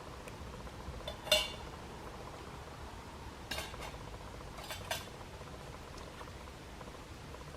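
Cutlery clinking against a dish while eating: a handful of short clinks, the sharpest just over a second in and the others around three and a half and five seconds.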